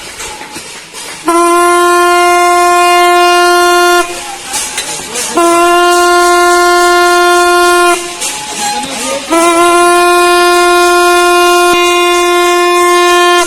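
A ship's horn sounding three long, steady blasts of about three seconds each, with short gaps between them.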